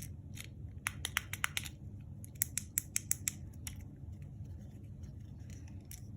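Silicone poppet fidget, a T-Rex poppet cube, being pressed: a run of quick, irregular small pops and clicks that thins out after about four seconds.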